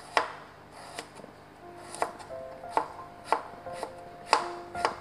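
Kitchen knife chopping garlic cloves on a plastic cutting board: about eight sharp knocks of the blade against the board, one every half second or so. Background music comes in about two seconds in.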